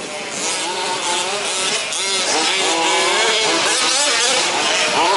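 Several 1/5-scale RC trucks' small two-stroke petrol engines revving and backing off over and over as they race, their rising and falling pitches overlapping.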